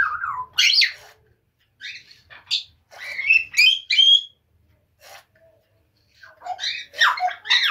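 Pet birds chirping and calling in short bouts of gliding, high-pitched notes: about a second in, again from two to four seconds, and near the end.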